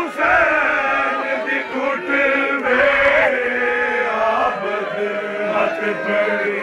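Men chanting a nauha, a Shia lament for Imam Hussain, together in a steady sung recitation with many voices overlapping.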